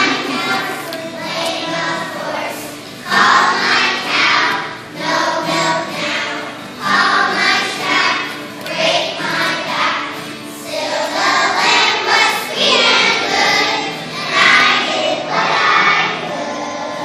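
Children's choir singing a song together in phrases.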